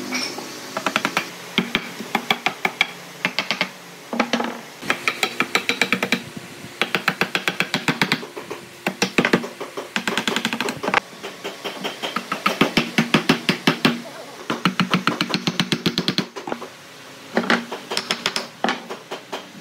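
Wooden mallet knocking on a wooden table-leg joint in quick runs of sharp blows, several a second with short pauses between runs, seating a crossbeam into the mortise at the top of the leg.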